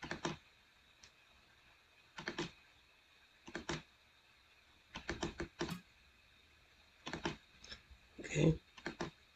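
Clicking of a computer mouse, in six short groups of a few quick clicks spaced a second or two apart. The group about eight seconds in is the loudest and deepest.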